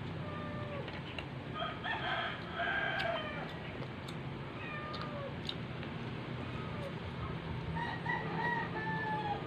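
A rooster crowing in the background, about two seconds in and again near the end, over a steady low hum, with a few sharp clicks.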